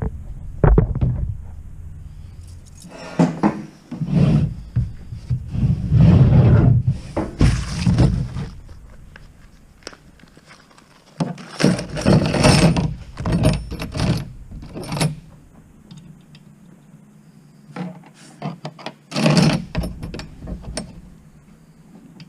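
Small hard metal parts and tools clinking, rattling and scraping in irregular bursts with knocks in between, as someone rummages for the right piece.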